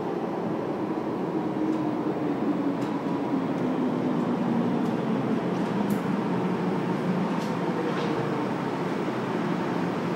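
MTR Island Line M-Train pulling into an underground station: a steady rumble with a low tone that slowly falls in pitch as the train slows, and a few faint clicks.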